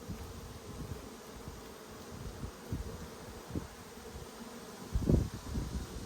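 Honeybees buzzing steadily around an opened hive, with a few low thumps, the loudest about five seconds in.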